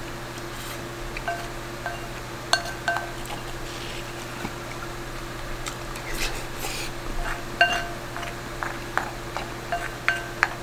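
A wooden spoon and chopsticks tapping and scraping against a bowl while eating rice: a dozen or so scattered clinks, each leaving a short ringing tone. A steady low hum runs underneath.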